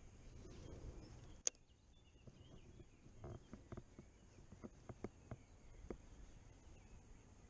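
Faint handling of a Daiwa CR80 baitcasting reel during a cast and retrieve: a low rumble, then one sharp click about a second and a half in, followed by scattered soft clicks.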